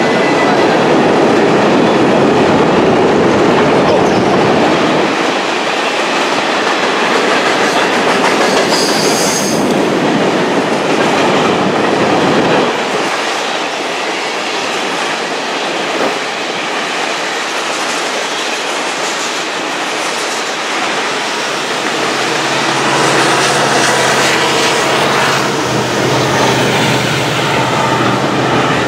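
Freight cars rolling past close by: a steady rumble with wheels clacking over rail joints and squealing on the curved track, with a brief high squeal about nine seconds in. A steadier pitched hum joins near the end.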